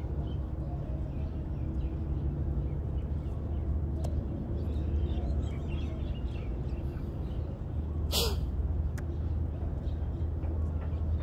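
Outdoor beach ambience: a steady low rumble with scattered faint bird chirps, and one brief sharp noise about eight seconds in.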